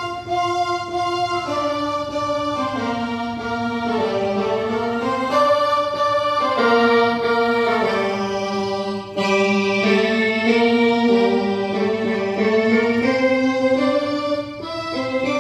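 Yamaha electronic keyboard played with both hands: a slow melody over chords, each note held steady without fading, in an organ-like voice.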